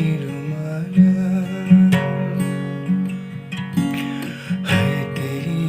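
Acoustic guitar strumming chords in an instrumental passage of a Kumaoni folk song, with several strong strokes standing out.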